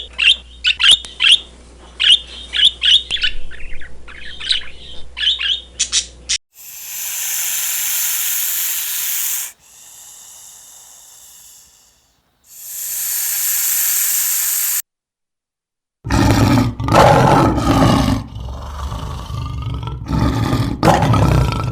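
Birds chirping in quick repeated calls for about six seconds, then stretches of rushing hiss, and after a short silence a loud, low animal roar.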